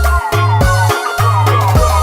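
Background music: a slow-bass DJ remix of a qasidah song, with sustained deep bass notes, drum hits and a gliding melody line.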